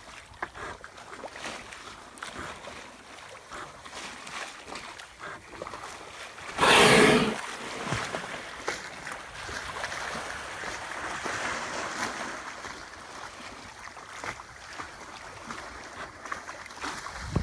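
Steady hiss of water and wind around a small yacht, broken about seven seconds in by one loud whooshing blast lasting under a second: a humpback whale's blow as it exhales at the surface.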